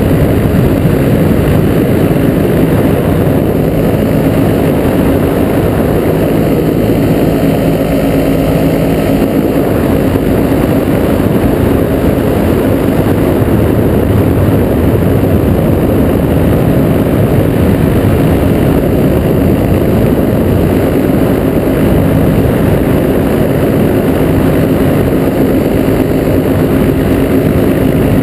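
Small aircraft engine and propeller of a powered parachute-wing craft running steadily in flight, heard loud from on board as a continuous drone with a steady hum.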